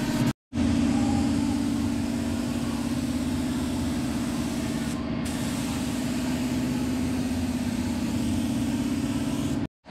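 Compressed-air paint spray gun hissing steadily as it sprays primer, over a steady low hum.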